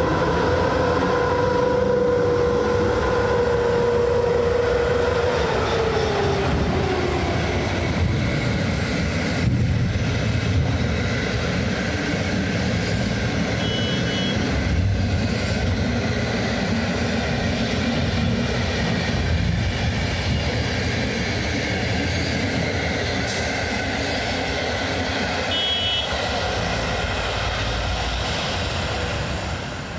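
A PKP Intercity EP07 electric locomotive moving off with its passenger train. A steady whine from the locomotive drops in pitch about five to seven seconds in as it draws away, followed by the steady rolling rumble of the passenger coaches going past.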